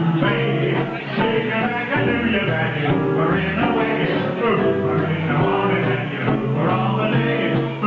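A live band playing a song, a full ensemble with a steady, even level.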